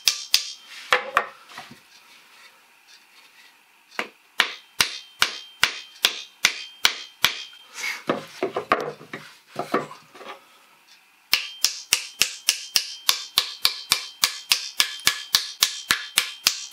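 Small hammer tapping glued wooden wedges into the kerf at the top of a birch axe haft, driving a cross wedge to lock the handle in the axe head's eye. The taps come in runs of about three a second, with a few duller knocks from a wooden mallet about eight seconds in, then a faster run of quick, lightly ringing taps from about eleven seconds in.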